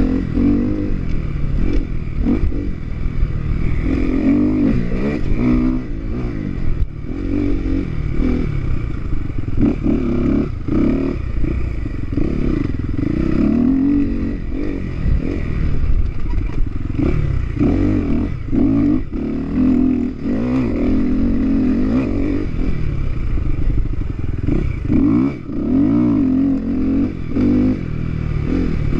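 Dirt bike engine revving hard and close-up, its pitch rising and falling over and over as the rider accelerates, shifts and chops the throttle through the course.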